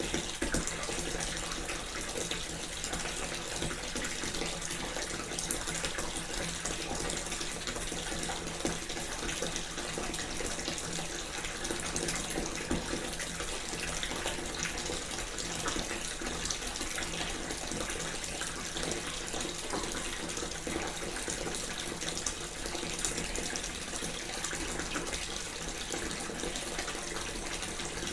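A bath filling from a running tap: water pours steadily into the tub without a break.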